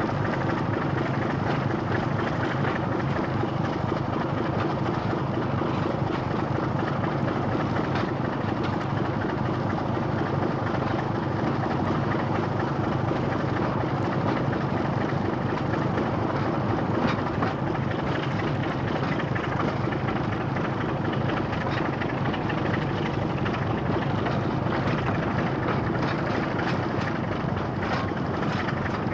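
Two British Rail Class 25 diesel locomotives' Sulzer six-cylinder engines running steadily at low power, holding an even note with no rise or fall.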